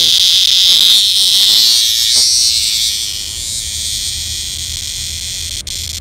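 Annual cicada held between fingers giving a loud, steady, high buzz, its distress call, which weakens about two and a half seconds in. Two short handling knocks near the end.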